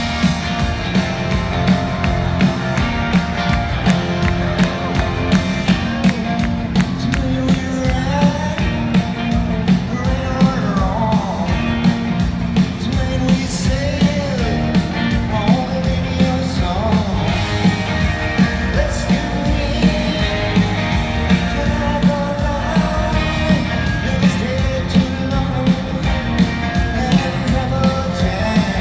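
Live rock band playing an up-tempo song with a steady drum beat, electric guitars and a sung lead vocal, heard over the PA from the seats of a large arena.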